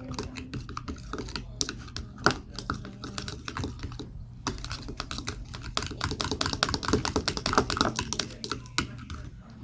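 Homemade slime being squished and kneaded by hand: a dense, irregular run of small clicks and pops, busiest in the second half.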